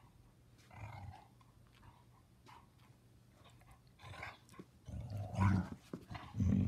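Basset hounds play-growling low in the throat while mouthing at each other. There is a short growl about a second in and louder, longer growls near the end.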